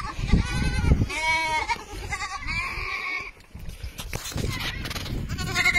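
Bottle-fed lambs bleating at feeding time: a string of wavering bleats, several of them overlapping, with a short lull just past the middle.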